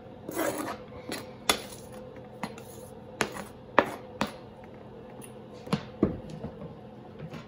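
A kitchen knife scraping and tapping chopped cilantro off a cutting board into a glass bowl: a string of sharp, irregular clinks and taps of blade on board and glass.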